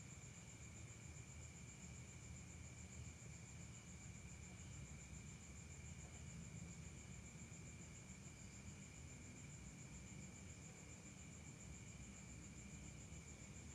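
Faint, steady trilling of crickets: a high, rapidly pulsing chirr with a second lower insect drone, unbroken throughout.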